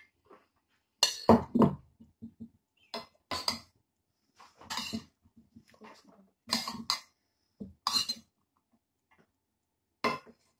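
Metal spoon clinking and scraping against a stainless-steel pot and a frying pan as cooked rice is scooped and spread. It comes as short, irregular clatters with quiet gaps between them.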